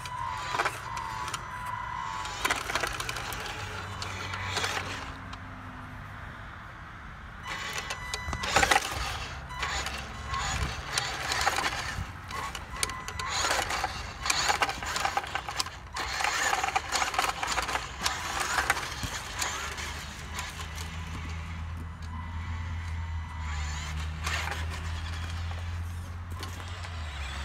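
Radio-controlled Western Star dump truck driving over dirt and gravel, with a steady low hum and a busy run of crunching and clicking from about eight to nineteen seconds in.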